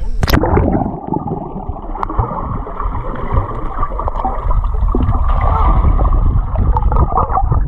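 A splash as the camera breaks the surface of a swimming pool, then muffled underwater rumbling and bubbling of the pool water, its high sounds cut off.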